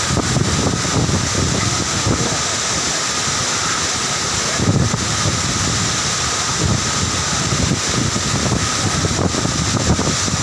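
Waterfall: a steady, loud rush of falling water, with uneven low rumbling through it.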